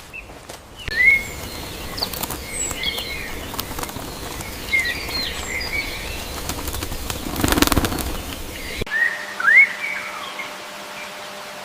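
Small birds chirping in short rising and falling calls. A flurry of wing flapping comes about seven and a half seconds in, and the recording changes abruptly near nine seconds to another stretch of chirping.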